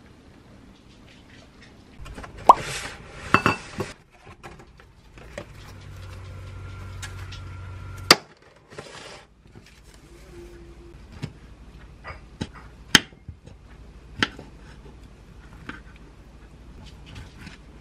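Kitchen handling sounds: packaging crinkles a couple of seconds in, and a low hum runs for a couple of seconds in the middle. Sharp clicks and knocks of things set down and handled on the counter come through the rest, with a knife slicing fresh figs on a wooden board near the end.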